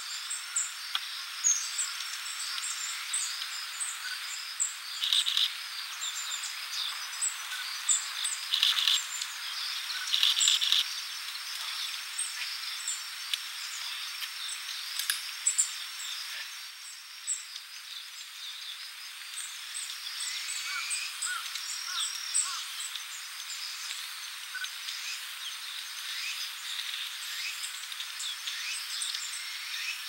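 Many short, high calls from a flock of Japanese white-eyes and long-tailed tits bathing together in a shallow rock pool. A few louder bursts of splashing come in the first half. A faint steady high whine lies underneath.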